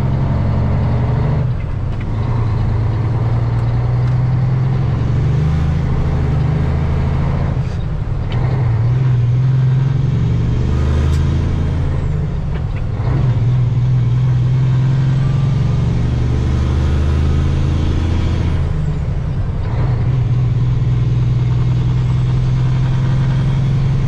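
Diesel engine of a heavily loaded semi truck pulling hard as it accelerates, heard from inside the cab. The engine note breaks off briefly about four times as it shifts up through the gears.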